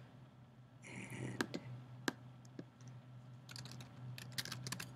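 Typing on a computer keyboard: scattered keystrokes and clicks in the first half, then a quick run of keystrokes from about three and a half seconds in. A brief hiss comes about a second in, over a low steady hum.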